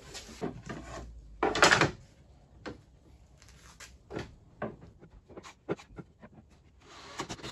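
Knocks and clatter of wood and tools being handled on a workbench: a louder, half-second clatter about one and a half seconds in, then scattered lighter taps and clicks.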